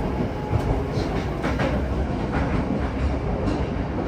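Yokohama Municipal Subway Blue Line 3000S train running through a tunnel, heard inside the passenger car: a steady rumble of wheels on rail with a few short clicks from the track.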